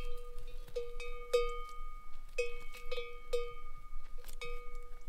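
A bell hung on a grazing horse's neck clanking as the animal moves. It gives about a dozen irregular strikes of one pitch, sometimes two or three in quick succession, each ringing on briefly.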